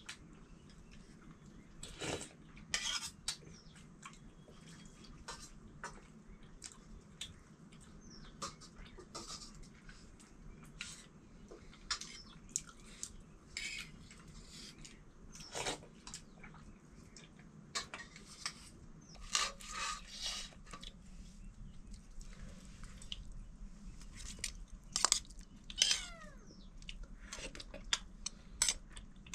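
Scattered clinks and knocks of dishes and utensils. A few short calls fall in pitch from an animal, perhaps a cat, about two-thirds of the way in and again near the end.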